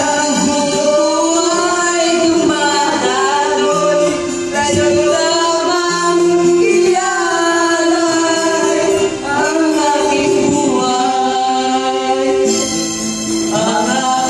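Men singing karaoke into handheld microphones over a music backing track, the sung melody rising and falling above steady held accompaniment notes.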